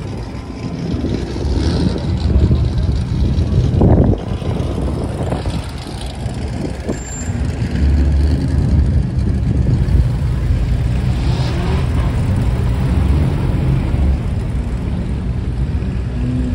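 Car engines running with a low rumble, swelling briefly about four seconds in.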